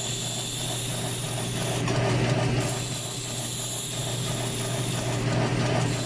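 South Bend lathe running at low speed with a hand file held against the spinning scooter wheel: a steady motor hum under a hissing filing sound that breaks off briefly twice as the file is lifted. A light, regular ticking comes from the turning drive.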